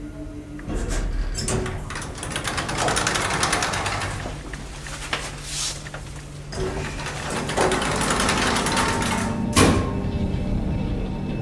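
Elevator car running with a steady mechanical hum, with stretches of paper-like rustling and a sharp click near the end.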